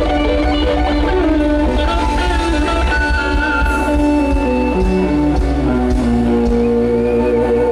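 Loud live band music led by electric guitar, with a descending run of notes about two-thirds of the way through.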